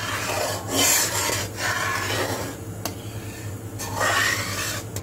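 Perforated steel spatula scraping around the bottom and sides of a steel kadhai while stirring thickening milk, in a few long scraping strokes.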